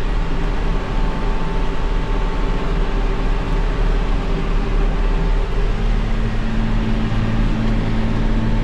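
Tractor engine running steadily, heard from inside the cab; its note changes about six seconds in, when a deeper steady hum comes in.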